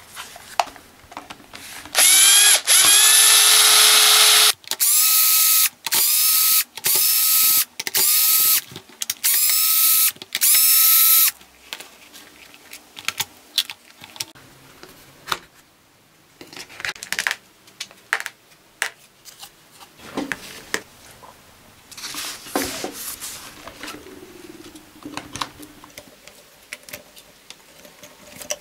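Peugeot 400W corded electric drill switched on and run, first for about two seconds, then in a series of short bursts, its motor spinning up with a rising whine each time. After that come clicks, knocks and rattles as its plastic housing is unscrewed and opened.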